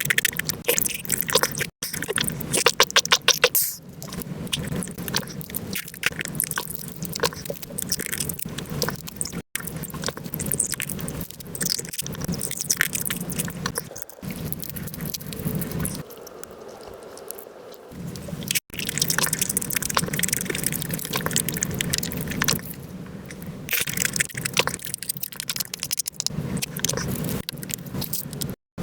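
Close-up eating sounds sped up five times: chewing, sucking and squishing of marinated crab and rice, run together into a fast, dense chatter of wet clicks. It stops dead for an instant a few times where one clip cuts to the next.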